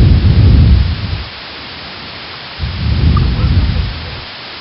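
Two bursts of low rumbling noise on the microphone, each a little over a second long, one at the start and one past halfway, over a steady hiss.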